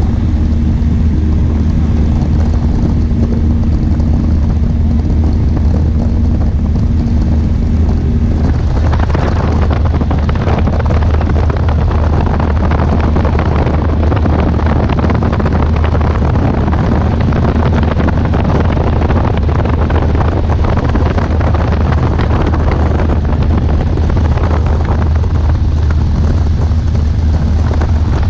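Steady drone of a small propeller plane's engine and propeller heard from inside the cabin. About eight seconds in, a loud rush of wind sets in and continues, as air pours through the open doorway.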